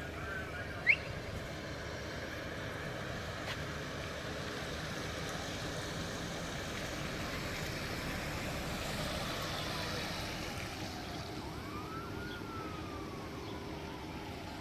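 Emergency vehicle siren wailing, rising and falling slowly in pitch, over steady outdoor background noise. A brief sharp rising chirp sounds about a second in.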